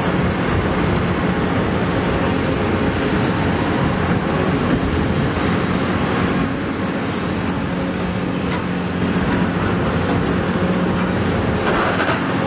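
Caterpillar 336E hydraulic excavator's diesel engine and hydraulics running steadily under load while its demolition attachment works a concrete wall, with a short burst of harsher noise near the end.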